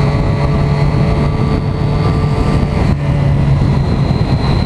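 Motorcycle engine running steadily while riding at cruising speed, with wind noise on the microphone.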